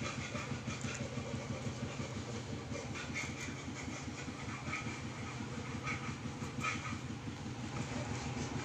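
Steady low rumble of a running engine with a fast, even flutter. Over it come a few faint, short scrapes as small fish are cleaned against a boti blade.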